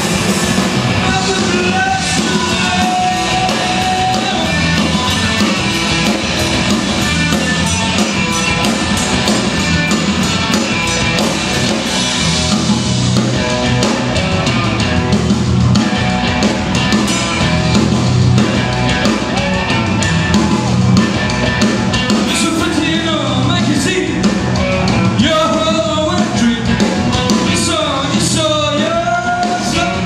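Live rock band playing a song at full volume, with a male lead singer; the voice comes through most clearly in the last several seconds.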